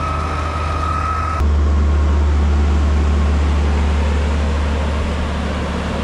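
Heavy diesel engine of a wheel loader compacting chopped maize silage, running with a steady low rumble. About a second and a half in, the sound changes abruptly to a closer, louder rumble that then slowly eases off.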